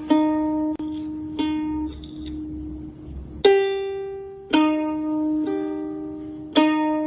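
Music: a slow line of single plucked-string notes, each ringing out and fading, mostly repeating one pitch with a higher note about three and a half seconds in.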